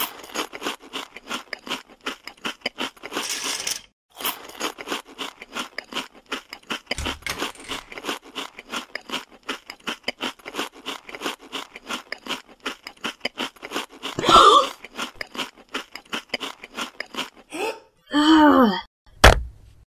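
Rapid run of crisp crunching clicks, several a second, like dubbed ASMR eating crunches. Near the end come a gliding, wavering sound effect and then one sharp crack.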